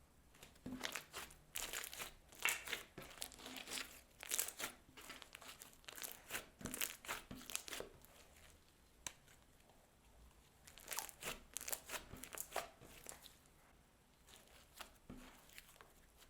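Slime being squeezed and worked by hand, giving quick crackling and popping clicks. They come in two busy spells with a quieter pause around the middle.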